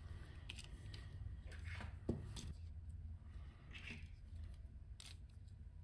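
Faint clicks and rubbing from handling a tiny plastic RC car chassis with tweezers in gloved hands, the sharpest click about two seconds in, over a low steady hum.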